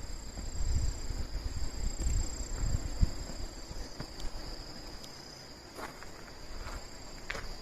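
Night insects, crickets among them, chirring steadily in two high tones. Low rumbling fills the first three seconds, with a single sharp knock about three seconds in, and a few faint clicks follow near the end.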